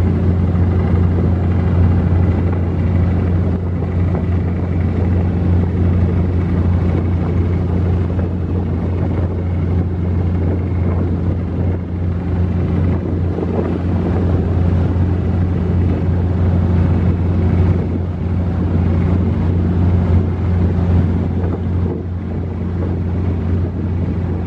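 Steady low drone of a passenger launch's engine, with a hiss of wind and rushing water over it.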